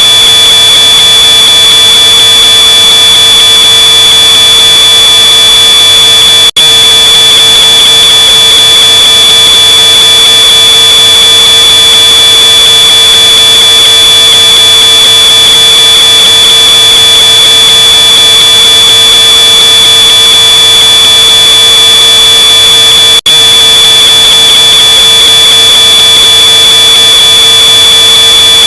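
Smoke alarm's piezo sounder giving one continuous high-pitched tone, boosted until it is harshly distorted and clipped. It drops out for an instant twice.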